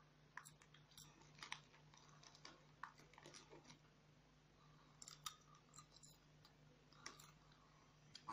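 Near silence: room tone with a faint steady low hum and scattered faint small clicks and ticks.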